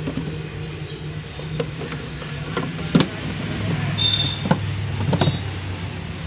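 Knocks and clatter of hands working plastic engine-bay parts as a new paper air filter element is pressed into its air cleaner box, with a sharp knock about three seconds in and two more near the end, over a steady low hum.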